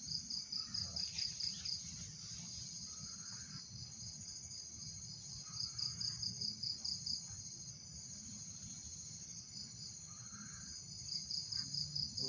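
Crickets chirping at night in a steady high chorus, with three louder pulsed trills, each about a second and a half long: near the start, in the middle and near the end.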